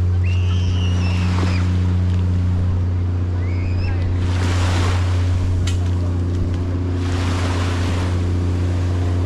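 Beach ambience: a steady low engine hum throughout, with small waves washing on the sand in two swells, about four and a half and seven seconds in. Brief voices are heard near the start.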